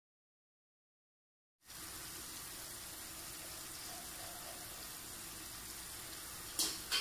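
Silence for the first second and a half. Then comes a steady hiss of the spiced watery masala heating and bubbling in an open pressure cooker on a gas burner, with two brief louder sounds near the end.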